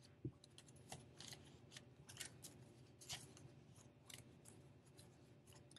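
Faint crisp rustles and flicks of paper banknotes being handled and laid down, a scattered series of short, soft sounds with a soft thump just after the start.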